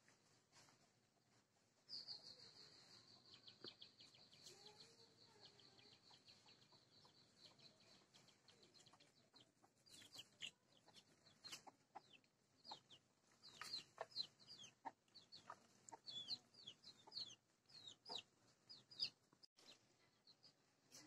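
Faint bird calls: a fast trill of high notes, slowly falling in pitch, from about two seconds in until around nine seconds, then scattered short high chirps.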